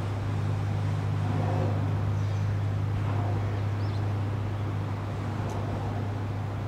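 Steady low engine drone of a large bulk carrier passing close by, holding an even hum.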